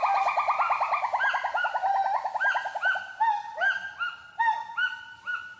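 Gibbon song: a fast run of about ten whooping notes a second, slowly falling in pitch, that eases into slower, separate rising-and-falling whoops.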